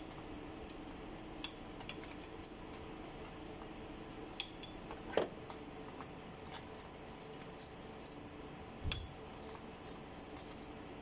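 Scattered metallic clinks and taps of hand tools on metal parts in a car's engine bay during spark plug work, with a louder clink about five seconds in and a dull thump near nine seconds, over a steady hum.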